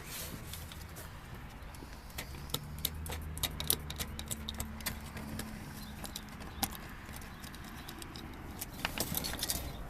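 Scattered light metallic clicks and clinks of a sheet-metal fluorescent light fixture being handled and taken apart to get at the ballast, with a low steady hum in the background for a few seconds in the middle.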